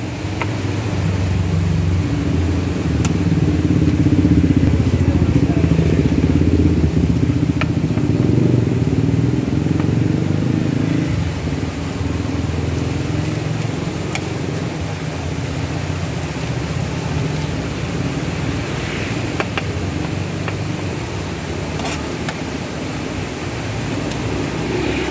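Motor vehicle engine running steadily with a low rumble, louder for the first ten seconds or so, with a few light clicks over it.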